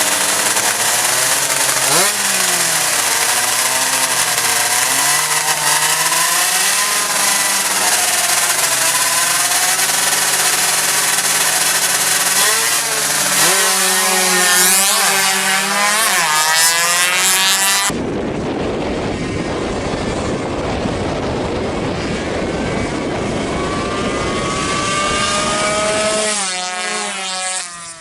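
Small two-stroke drag-bike engines revving hard, with rising, high-pitched whines as they accelerate, several in quick succession about halfway through. About two-thirds of the way in the sound changes abruptly to a harsher, rougher engine noise, and another rising rev follows near the end.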